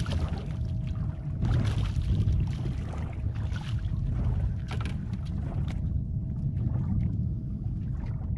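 Small fishing boat on the water: a steady low rumble with a faint constant hum, and washes of rushing, splashing noise that come and go, easing off in the last couple of seconds.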